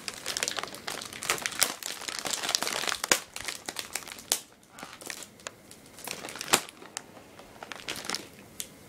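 Plastic Oreo cookie packaging crinkling as it is handled and pulled at: dense crinkling for the first three seconds, then scattered crackles and sharp clicks, the loudest about six and a half seconds in.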